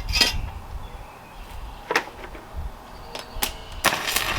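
A few separate sharp clicks, then about four seconds in an electric arc welder strikes its arc and starts a steady crackle.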